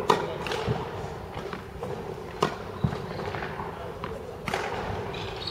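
Badminton rally: a series of sharp racket strikes on a shuttlecock, a second or two apart, the loudest near the start, in the middle and near the end.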